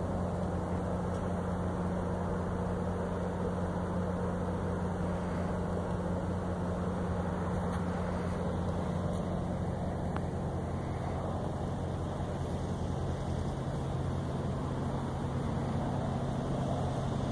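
Car engine running with a steady low hum; its pitch changes about ten seconds in.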